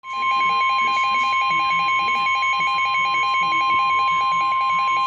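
Emergency alert warning tone: a steady, loud high tone with a lower beep pulsing rapidly over it, about six or seven times a second, signalling the start of a severe weather warning broadcast.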